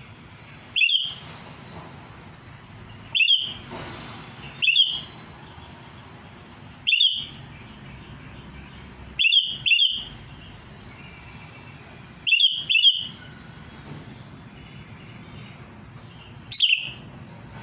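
Sooty-headed bulbul (kutilang) giving short, sharp calls every two or three seconds, some single and some in quick pairs.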